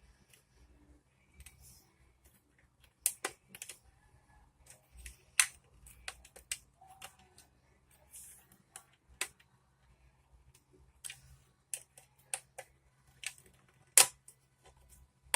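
Plastic Lego bricks being handled and pressed together: irregular sharp clicks and taps with a few louder snaps, the loudest near the end.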